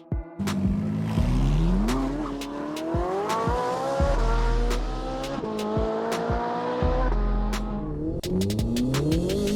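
Racing car engine revving up through the gears, its pitch climbing and dropping back about five times, over electronic music with a heavy low beat.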